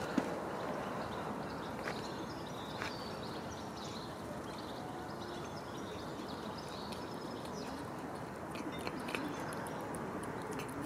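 A cat eating wet food from a plastic tub: soft clicks of chewing and licking, more of them near the end. Small birds chirp over a steady outdoor background noise.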